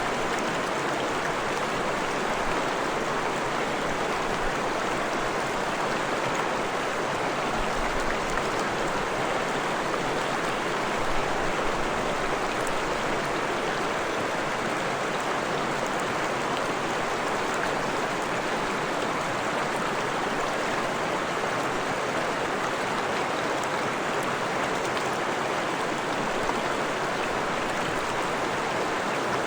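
Stream of fresh water flowing and splashing, a steady rushing with no break or change.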